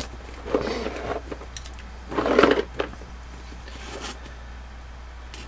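Gift packaging being handled: several short bursts of rustling and light clattering, the loudest about two seconds in, over a faint low hum.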